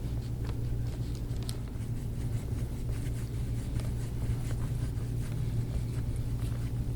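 Steady low hum with faint, scattered rubbing and scratching from hands working deep into the muscles over the ribs.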